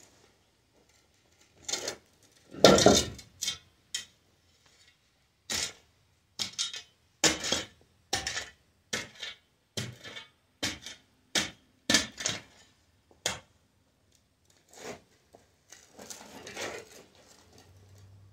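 Steel spade blade chopping and scraping into a dirt floor, a run of sharp clinking strikes about one every half second to a second, with a longer scraping stretch near the end.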